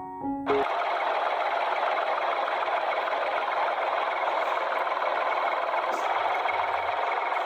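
A small electric motor running steadily, a constant whir. Piano music cuts off about half a second in.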